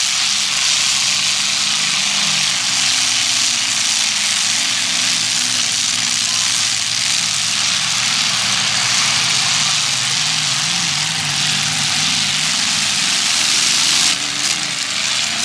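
Demolition derby car engines running loudly, their pitch wavering up and down as they rev, under a steady hiss of noise.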